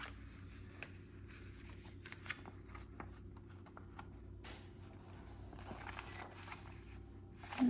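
Faint rustling and scattered light clicks of snack packaging and paper being handled, over a low steady hum.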